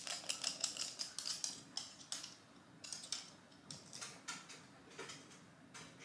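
A long-coat chihuahua's claws clicking on hard flooring as she trots, a quick run of clicks for about two seconds, then slower scattered clicks as she steps into and around a plastic pet dryer box.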